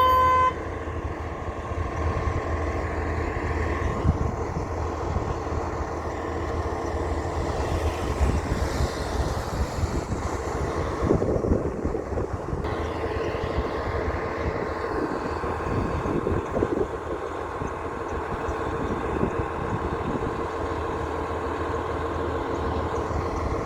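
Heavy truck traffic: diesel engines running and vehicles passing, swelling and fading. It opens with the tail of a short beep.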